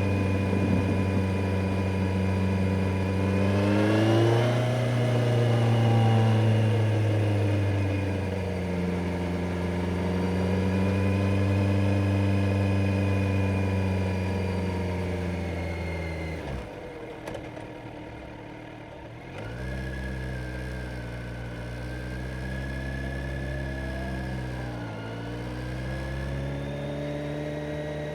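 Kawasaki Z900's inline-four engine under way. Its note rises as it accelerates about four seconds in, then holds fairly steady with gentle swells. About sixteen seconds in it falls away for a few seconds as the throttle closes, then picks up again.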